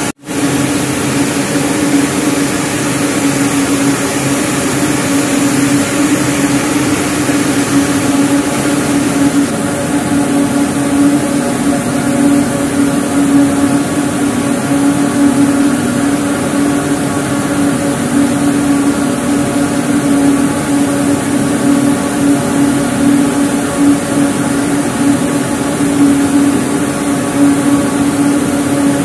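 Compact ring spinning frames running: a loud, steady machine hum with a strong low drone and a haze of hiss from the turning spindles and drafting rollers.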